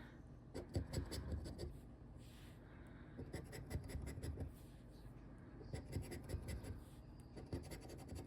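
Scratch-off lottery ticket being scratched, its coating scraped away in short runs of quick strokes with brief pauses between them.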